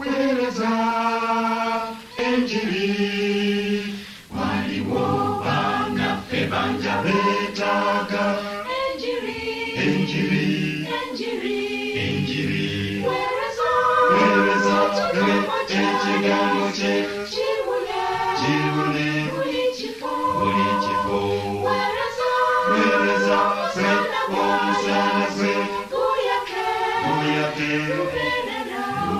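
Church choir singing, several voice parts sounding together in harmony, each chord held for a second or two.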